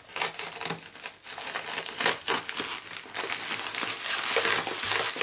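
Yellow plastic postal bag crinkling and crackling as hands tear it open, with bubble wrap showing inside. The crackle grows louder and denser about three seconds in.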